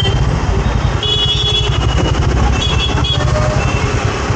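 Road vehicle engine running with a low, fluttering rumble, and short high tones about one and about two and a half seconds in that fit horns sounding in traffic.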